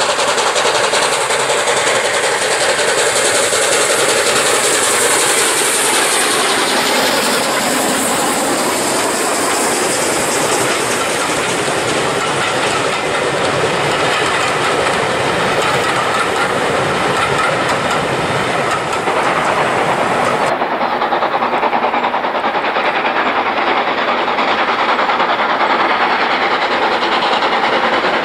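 Steam-hauled passenger train passing close by, the coaches rolling past with the clickety-clack of wheels over rail joints. About twenty seconds in the sound cuts abruptly to a duller, steady train noise.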